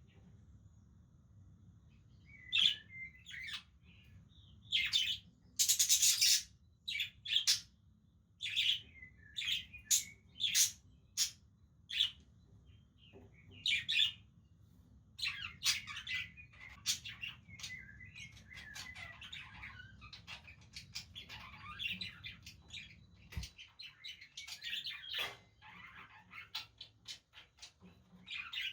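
Budgerigars chirping: sharp separate chirps at first, then, about halfway through, a longer stretch of continuous warbling chatter.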